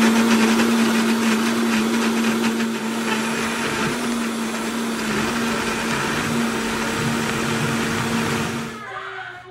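Vitamix blender running at a steady pitch, pureeing chunks of onion, peppers and chilies into a smooth sauce. The motor stops near the end.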